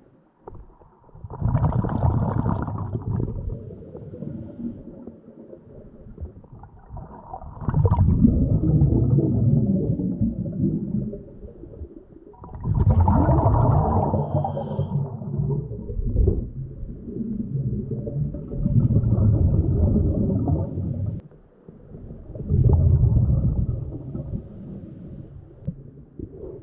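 Muffled underwater rumbling and gurgling of water moving around a submerged camera, swelling up in bursts of two to three seconds about every five seconds.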